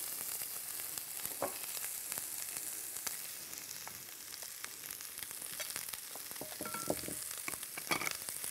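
Sliced onions sizzling as they fry in hot oil in a stainless steel pot, with short clicks and scrapes of a silicone spatula stirring them.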